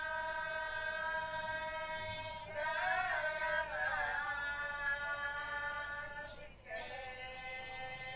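A high voice singing a slow prayer song in long held notes, with a short wavering ornamented run about three seconds in. After a brief break near six and a half seconds it takes up a slightly lower held note.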